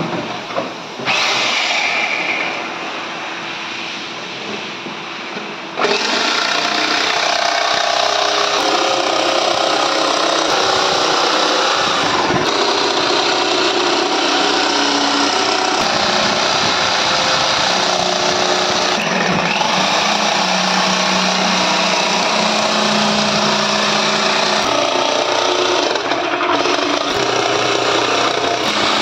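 Electric jigsaw running and cutting through a plywood board along a marked curve. After a few seconds of quieter hissing, the saw cuts in loud and steady about six seconds in.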